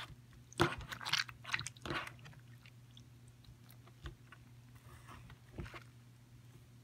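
Fingers squeezing and pressing bubbly slime, making wet crackles and pops as trapped air bubbles burst: a quick flurry in the first two seconds, then a few single pops.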